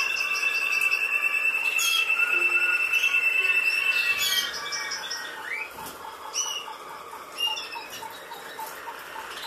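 Caged European goldfinches chirping and twittering in short, high notes. A steady high tone runs under them and stops about four seconds in, and a soft pip repeats about three times a second throughout.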